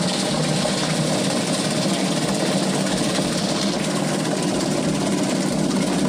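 Washing machine wash motor and pulsator running steadily, powered through a newly fitted wash timer switch that is being tested.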